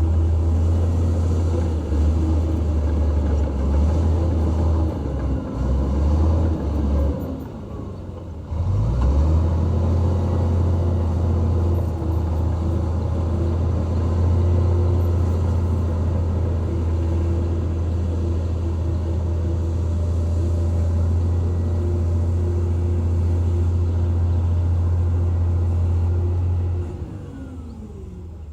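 Diesel engine of a heavy earthmoving machine running hard with a steady low drone. Its revs drop briefly about eight seconds in, pick up again, and fall away once more near the end.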